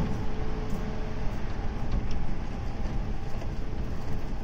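JNR 185 series electric multiple unit running on the line: a steady low rumble of wheels and running gear. A faint steady tone in it drops away about a second in.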